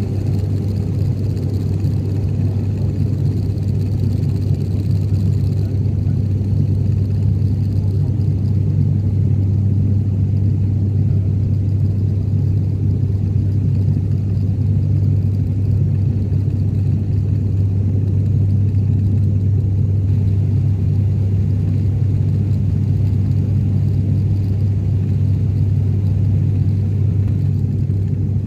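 Steady drone of an airliner's engines and rushing air heard inside the passenger cabin in flight, a constant low hum.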